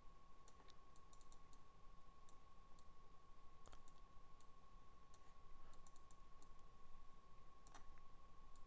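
Quiet computer mouse clicks at an irregular pace, over a faint steady tone.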